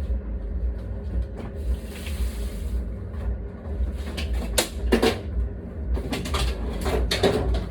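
A food container being put away in a refrigerator: a cluster of knocks and clatters from about four and a half seconds in, as things are set down and moved about. A brief hiss comes about two seconds in, and a steady low hum runs underneath.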